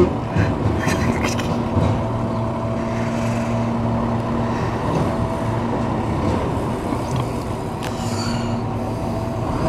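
Garbage truck's diesel engine running with a steady low hum as the truck moves slowly along the lane.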